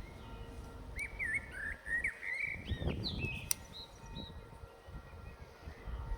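A songbird singing a quick string of whistled chirps, starting about a second in and fading after a couple of seconds, over a low, uneven rumble.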